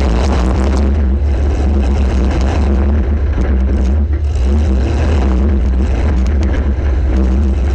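A demolition derby compact car's engine running hard with a loud, steady low rumble, over a constant clatter of short knocks and rattles from the battered car.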